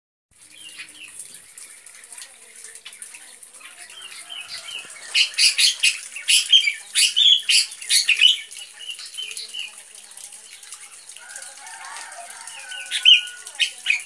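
Caged black drongo singing in imitation of a sooty-headed bulbul (kutilang): loud bursts of quick, repeated chirping notes from about five to eight seconds in, and again near the end with a short held whistled note, over a steady high hiss.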